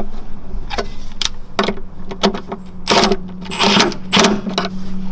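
Cordless electric ratchet run in a series of short bursts, about eight in all, tightening the bolts that hold the fuel vent hoses to their bracket.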